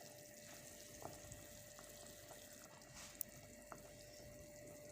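Near silence: faint steady hiss with a thin steady hum and a few soft ticks.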